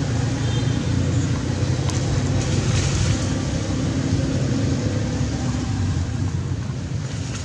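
A steady low engine rumble, with a brief hiss about two and a half seconds in.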